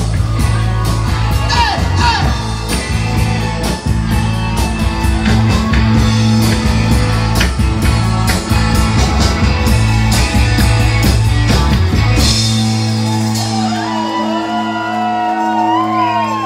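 A live rock band plays loud, with electric guitars, bass and drums. About thirteen seconds in, the drumming stops and held chords ring on, while a guitar line slides up and down in pitch.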